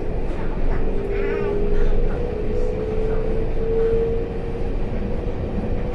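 EMU800 electric multiple unit running, heard from inside the passenger car: a steady rumble of wheels on rail. A steady whine joins it about a second in and fades out near the end.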